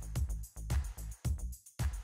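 Background music with a steady electronic dance beat, bass thumps about twice a second.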